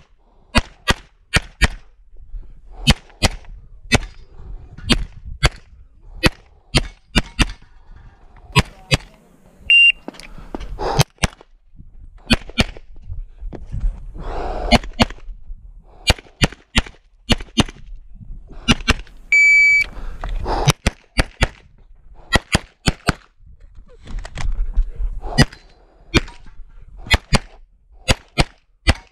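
Pistol shots fired rapidly in a competition stage, mostly as quick double taps with short pauses between strings of shots. Two short high beeps sound about a third and two-thirds of the way through.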